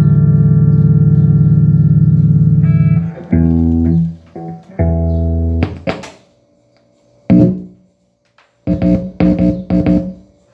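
Electric guitar played through a Line 6 Flextone III modelling amp, newly fitted with replacement pots and switches: one long held chord for about three seconds, then short chords cut off, with silent gaps between them.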